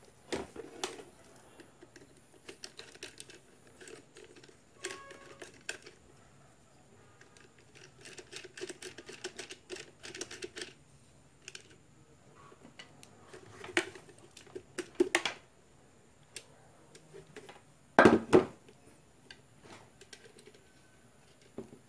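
Hand tools and hands working on the plastic housing of a small electric air blower: a screwdriver turning screws and the casing being handled, giving scattered light clicks, taps and scrapes, with one sharper knock about 18 seconds in.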